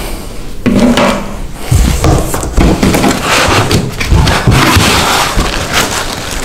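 White foam packing end caps creaking and squeaking as they are worked off a boxed network switch, with the switch's plastic bag rustling and foam scraping on cardboard. The sound is a loud, irregular run of scrapes and knocks.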